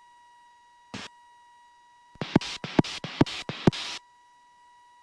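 Aircraft radio heard through the headset intercom: a faint steady tone, one short click about a second in, then a rapid run of about seven short clicks and crackling bursts. The bursts sound like the radio being keyed or tuned just before the airport's automated weather broadcast comes through.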